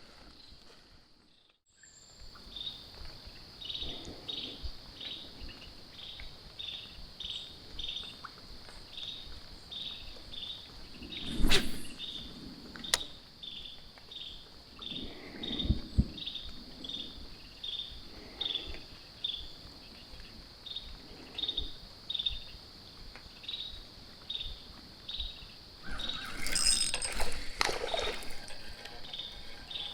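Outdoor chorus of insects: a steady high-pitched drone with a steady rhythm of chirps, about two a second, over it. A few dull knocks and some rustling of handling come in briefly, twice near the middle and once near the end.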